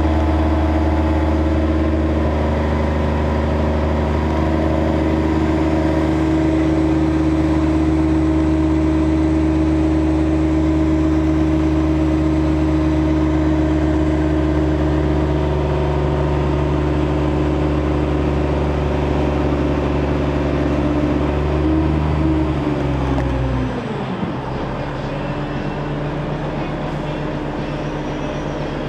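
A 30-ton mobile crane's diesel engine running at steady, raised revs while it hoists a load. Near the end the revs drop and it settles to a lower, quieter run.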